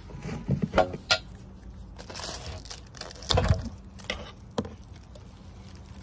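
Plastic wrap crinkling and tearing as a gloved hand pulls at it, with sharp crackles and clicks and a dull thump about three and a half seconds in.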